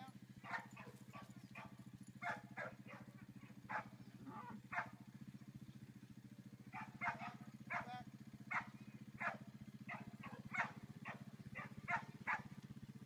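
A dog barking repeatedly in short sharp barks, about two to three a second, with a pause of a couple of seconds midway, over a steady low hum.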